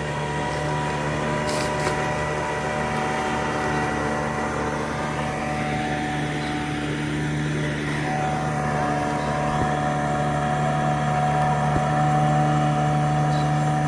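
A chorus of frogs and insects calling at dusk: several steady, overlapping droning tones at different pitches. Some tones drop out or change about eight and twelve seconds in.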